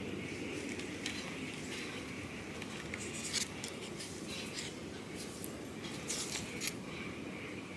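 Short scratchy scrapes and clicks as an onion bulb is pushed into a hole in a styrofoam lunch box and fingers rub the foam. They fall in two clusters, from about three to four and a half seconds in and again around six seconds, over a steady low background noise.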